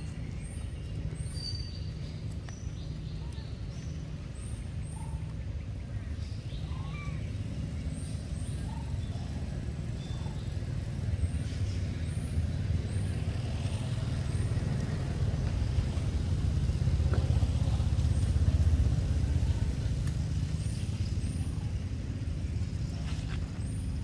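Low engine rumble of a vehicle that grows louder to a peak about three quarters of the way through, then eases off. Short high chirps sound on and off over it.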